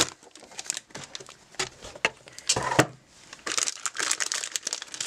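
Cardboard and plastic packaging handled and unpacked from a box, crinkling and rustling in irregular bursts with a few sharp clicks.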